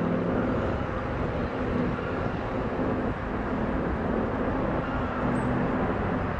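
British Airways Airbus A380's four Rolls-Royce Trent 900 jet engines climbing out at takeoff thrust: a steady jet rumble with a faint low hum.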